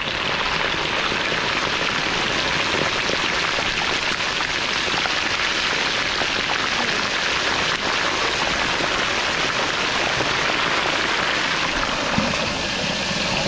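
Pork neck pieces deep-frying in a large wok of hot oil: a steady, dense sizzle and crackle of bubbling oil, the first fry of a double-fry for crispy sisig. Near the end there is one short knock as a metal lid goes over the wok.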